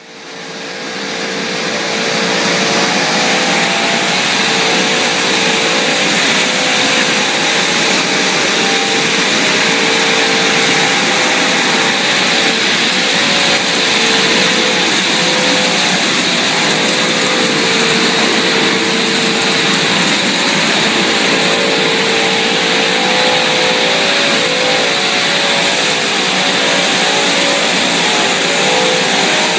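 Machinery of a breakfast-cereal extrusion line running steadily, a loud even mechanical noise with a faint wavering hum underneath. It fades in over the first two seconds.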